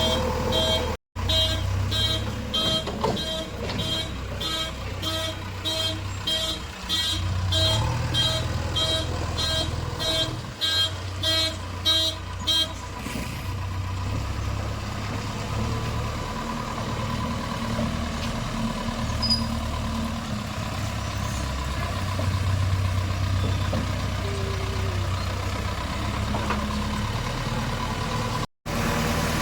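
Diesel engine of a JCB 3DX backhoe loader running, its drone rising and falling with load while working gravel. A reversing alarm beeps about twice a second through the first half, then stops. The sound cuts out briefly twice.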